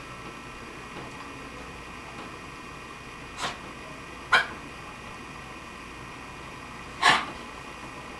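Dog with kennel cough giving three short, dry, hacking coughs, brought on by rubbing its windpipe (tracheal palpation); the first is the faintest, the last, about seven seconds in, the loudest.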